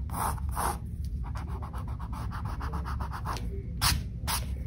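Pencil scratching across a painted canvas as lines are sketched: two strokes, then a quick run of short strokes, then two stronger strokes near the end, over a steady low hum.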